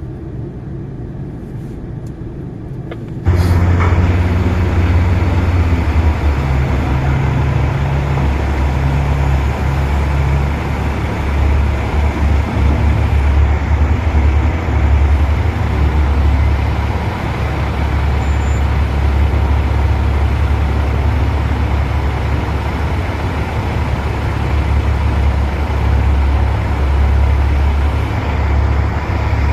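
Heavy diesel engine of large mining machinery running: a low drone that jumps abruptly much louder about three seconds in, then holds a loud, steady rumble.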